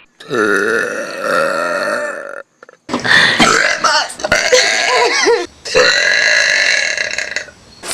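A person burping: three long, loud burps one after another, the middle one wavering up and down in pitch.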